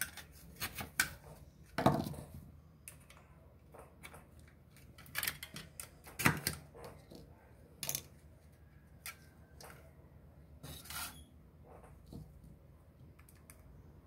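Irregular clicks and knocks of hard plastic parts and a steel screwdriver as a refrigerator fan motor's plastic housing is pried apart and handled. Two sharper knocks come about two and six seconds in, and there is a brief scrape near the end.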